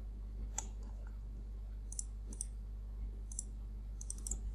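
Scattered clicks of a computer mouse and keyboard as a value is entered in a dialog box, with a quick run of clicks near the end, over a steady low hum.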